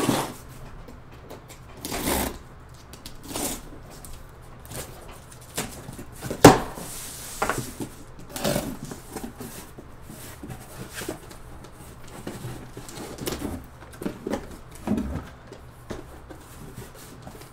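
Cardboard shipping case being handled and opened by hand: scattered scrapes, rustles and knocks on the cardboard, with one sharp knock about six and a half seconds in followed by a brief hiss.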